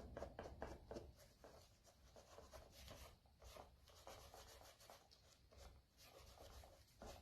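Faint, quick rubbing strokes of wax being worked into a vegetable-tanned leather pouch, several strokes a second.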